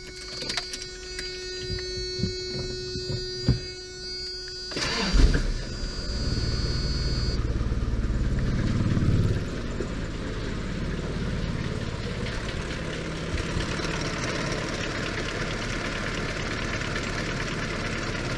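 Keys jingle in the ignition of a Toyota pickup while a steady tone sounds; about five seconds in the engine cranks briefly and starts. It runs louder for a few seconds, then settles to a steady idle, started with the radiator cap off so the fresh coolant can circulate.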